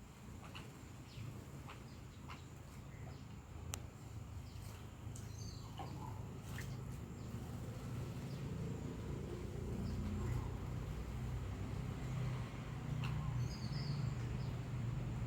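A few short, scattered bird chirps and clicks over a low rumble that grows steadily louder.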